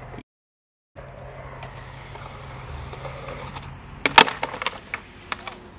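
Skateboard on a concrete skate park: a steady rolling noise, then a sharp loud clack about four seconds in as the board comes down on the concrete from a flip trick off the steps, followed by a few lighter clatters.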